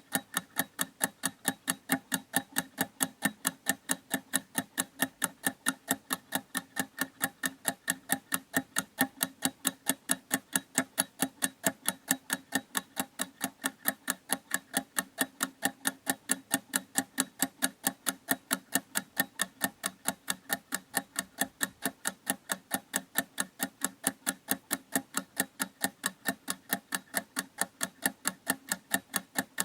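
Clock ticking: fast, perfectly even ticks, several a second, at a steady level throughout.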